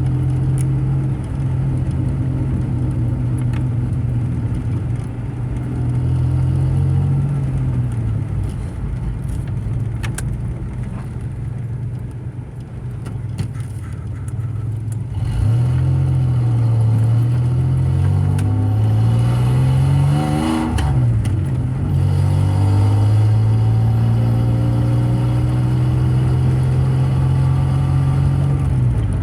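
Car engine and exhaust while driving, the exhaust newly refitted. A steady drone, then a little past halfway the engine pitch climbs and drops twice as it accelerates through gear changes, before settling back to a steady cruise.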